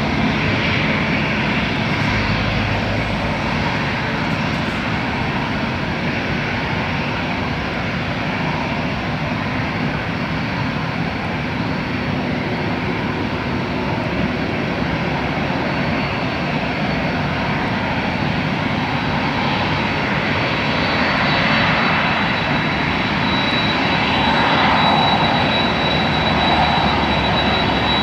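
Boeing 767-400ER's twin GE CF6-80C2 turbofans running at low taxi thrust: a steady jet rumble and rush. A thin high whine becomes clear in the last third as the aircraft turns toward the listener.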